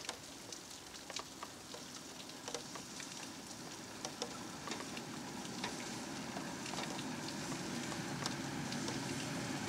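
Irregular patter of raindrops in wet weather, over a low rumble that grows steadily louder as a steam train approaches.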